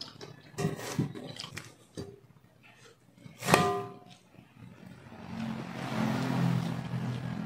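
Eating sounds of a man eating shrimp kinilaw by hand, with soft mouth and finger clicks, then a single sharp ringing clink of a spoon against the ceramic bowl about halfway through. A low rumbling noise swells from about two-thirds of the way in and eases near the end.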